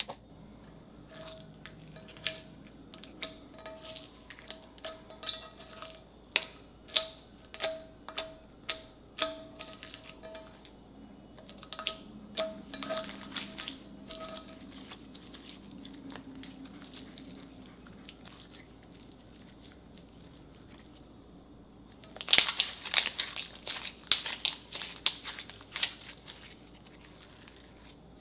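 Slime being pressed and kneaded by hand, giving a run of sharp wet pops and clicks, about one or two a second. Near the end comes a dense burst of crackling as the slime is squeezed.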